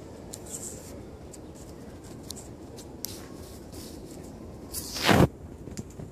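Light rustles and clicks of handheld camera handling while walking on a dirt path. About five seconds in comes one loud, brief rubbing noise on the microphone.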